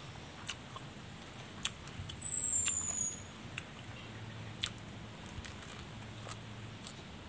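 Light clicks and crackles of fingers picking at banana-leaf-roasted fish and lettuce. A high, shrill animal call starts about a second in, runs for about two seconds and steps down in pitch; it is the loudest sound.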